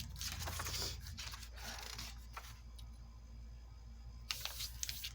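Paper journal pages being handled and folded over, rustling and crinkling in short bursts, with a quieter pause of about two seconds before more rustling near the end.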